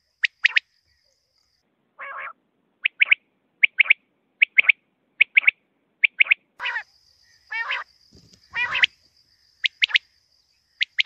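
Caged male quail (batair) calling its fast song: short, sharp phrases of two or three notes, repeated about once a second. Around the middle come three longer, harsher calls, the last of them the loudest.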